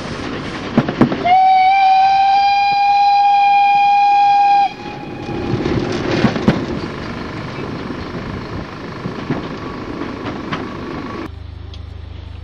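Narrow-gauge steam locomotive's whistle blowing one steady note for about three seconds, heard from a carriage window over the noise of the train running. After it the train runs on with scattered clicks from the wheels. Near the end the sound cuts suddenly to a low steady hum.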